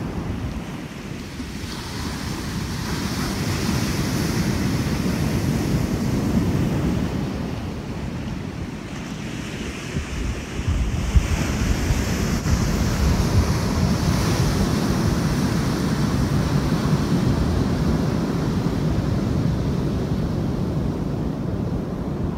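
Ocean surf breaking and washing up a sandy beach, a steady rush that swells and eases over several seconds, with wind buffeting the microphone and adding a low rumble.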